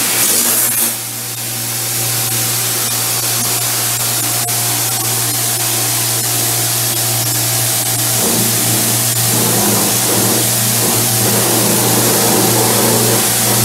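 Pressure washer jet blasting tile, a steady loud hiss with a low hum beneath it, briefly easing about a second in.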